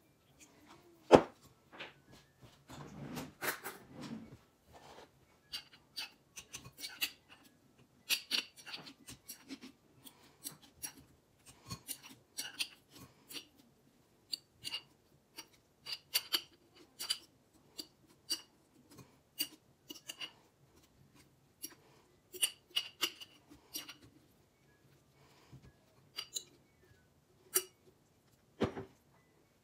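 A metal fork clinking and scraping against a glass jar and a stainless mesh strainer as fermented romaine lettuce is pulled out to drain. Irregular sharp clinks and taps run throughout, with a louder knock about a second in.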